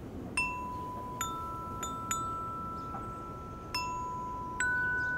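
Glockenspiel played with mallets: a slow line of single notes, about six strikes, each bar ringing on and overlapping the next.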